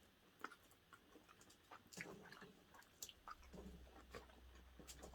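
Faint chewing with scattered small clicks and mouth noises of people eating.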